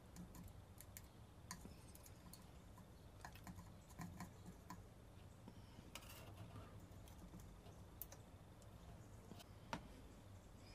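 Near silence: a faint low hum with a handful of soft, scattered clicks several seconds apart, the last of them, near the end, the most distinct.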